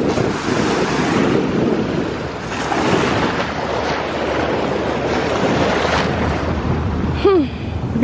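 Small waves washing up on a sandy beach, with wind rushing over the microphone.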